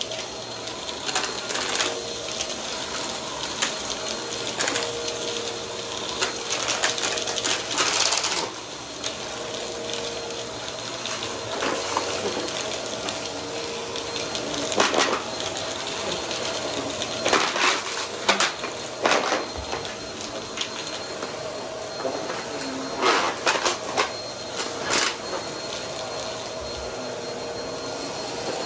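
Upright vacuum cleaner running on carpet, its motor a steady whirr with a faint steady tone, broken again and again by short crackling crunches and clicks as bits of debris are sucked up through the floor head.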